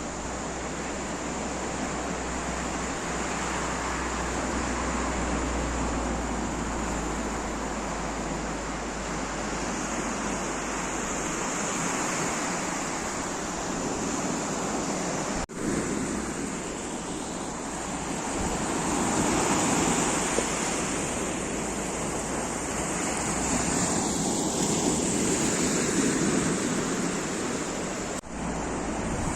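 Sea surf: waves rushing and washing in, the rush swelling and easing over several seconds, broken by two momentary drops in sound.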